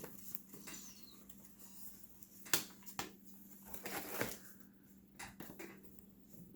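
Handling noise from a paper and cardstock explosion-box card: soft rustling with a few sharp clicks and taps, the loudest about two and a half seconds in, over a faint steady hum.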